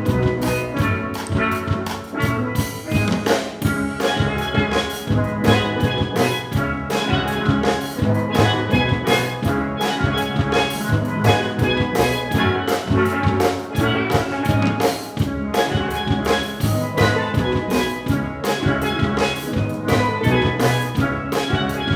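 Steel drum band playing a pop song, with many steel pans striking the melody and chords over a steady drum beat.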